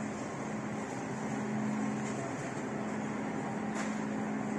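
Steady supermarket ambience: the constant hum of open refrigerated display cases and air-conditioning, with a faint click near the end.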